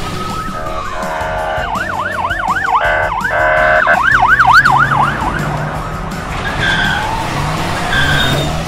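Police siren sound effect in fast yelp mode: a pitch sweeping up and down about four times a second for a few seconds, followed by a few short, steadier high tones near the end.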